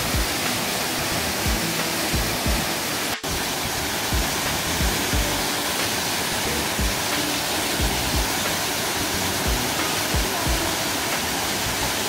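A 28 m mountain waterfall pouring down a rock face into a pool: a steady rushing of falling water, with soft irregular low thumps about twice a second. The sound drops out for an instant about three seconds in.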